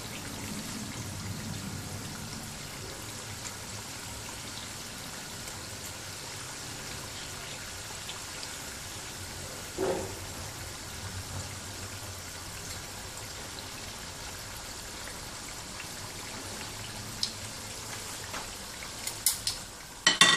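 Churros frying in hot oil in a small frying pan, a steady sizzle and crackle. About halfway through, a metal spoon or skimmer knocks once against the pan as the churros are turned, and there are a few sharp clicks near the end.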